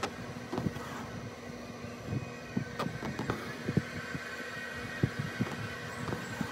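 Hands and needle handling taut embroidery fabric close to the microphone: irregular soft thumps and a few light taps as the cloth is touched and thread is drawn through, over a steady faint hum.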